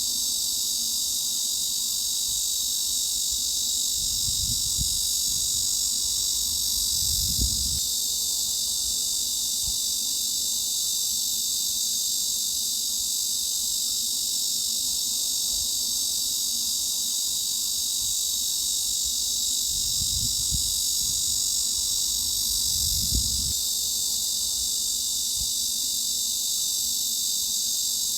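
Cicadas buzzing in a steady, dense, high-pitched chorus that doesn't let up. A few soft low thumps come through now and then.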